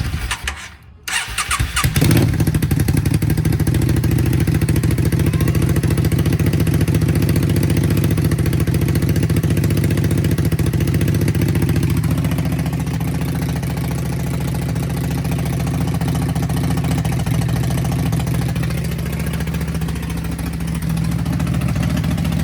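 Yamaha bobber motorcycle engine cranking and catching about two seconds in, then running steadily at idle. The idle settles a little lower around twelve seconds in.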